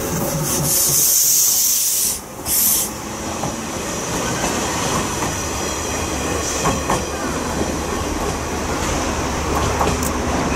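JR West 105 series electric commuter train passing close and pulling away, its wheels running on the rails with a steady rumble and a few sharp clicks about six to seven seconds in. A loud hiss sits over the first few seconds.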